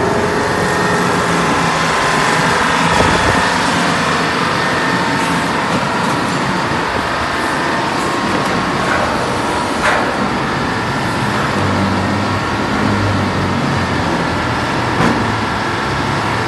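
NCK 605 crawler crane running steadily while working, its engine and winch gear making a continuous mechanical drone. Two sharp knocks come near the middle and near the end.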